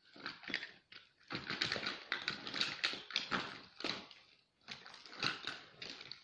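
Rummaging through a collection of make-up brushes and cosmetics: small hard objects knock and rattle against each other in quick, irregular clicks and clatters, with two short pauses.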